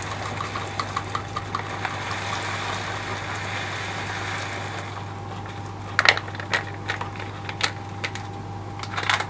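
Cooking at a kitchen stove: a run of light rapid ticks, about four a second, dying away, then a few seconds of hiss, then several sharp clinks of a utensil against a pot, over a low steady hum.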